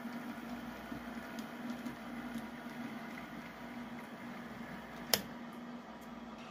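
HO scale model diesel switcher running along the track with a steady hum, then a single sharp click about five seconds in as its coupler meets a boxcar's coupler.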